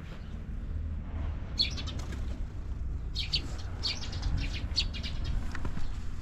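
Small birds chirping in short bursts, a few near the start and a busier run in the middle, over a low steady rumble.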